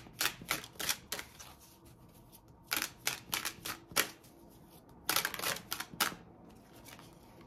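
Tarot cards being shuffled by hand: three short runs of quick card snaps and slaps, each about a second long.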